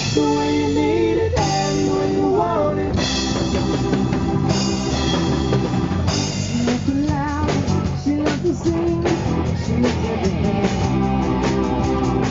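Rock music with drums, electric guitar and a singing voice, playing steadily.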